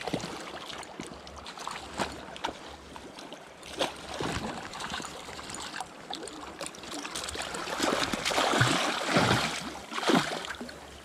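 Flowing river water, a steady rushing hiss, with scattered sharp knocks; it grows louder from about eight seconds in, then drops back near the end.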